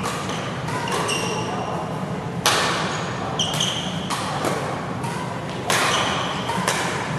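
Badminton rackets hitting the shuttlecock in a doubles rally: a string of sharp cracks, the loudest about two and a half and five and a half seconds in, with short high squeaks of court shoes on the mat between hits, echoing in a large hall.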